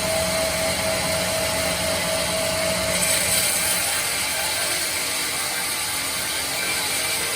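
Log bandsaw mill running with a steady mechanical whir. A clear tone fades out about three seconds in, and a brief high hiss comes in at about the same time.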